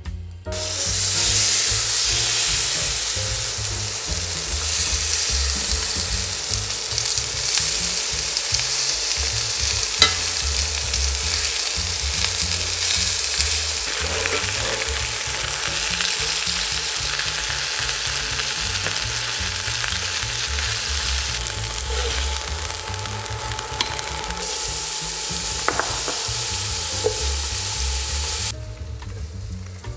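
Chicken thighs frying in hot olive oil in a cast-iron skillet: a loud, steady sizzle that starts abruptly, with a few sharp clicks along the way. Near the end the sizzle drops off sharply.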